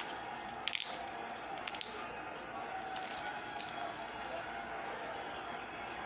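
Slime being squished by hand, with a few short sticky clicks and pops over a steady background hiss.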